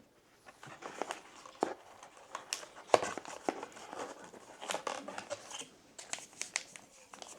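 Foil booster-pack wrapper crinkling and tearing open as a pack of trading cards is unwrapped: a run of irregular sharp crackles and snaps.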